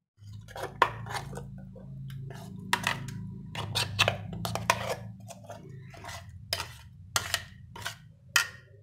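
Spoon scraping and clinking against a stainless steel mixer jar while thick ground chutney is scooped out into a ceramic bowl: a run of sharp irregular clinks and scrapes over a low steady hum.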